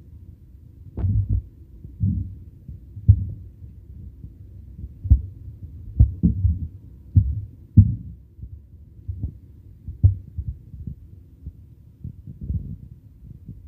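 A silicone spatula stirring and tossing flat rice noodles in a wok, giving dull, irregular thumps about once a second against the pan, a few of them sharper knocks.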